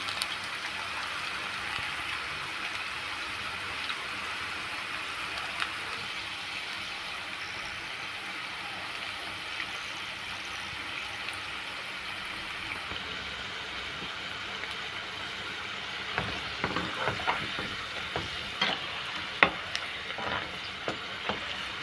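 Besan-coated okra strips deep-frying in hot oil in a kadhai, a steady sizzle. Near the end a spoon stirring them knocks and scrapes against the pan several times.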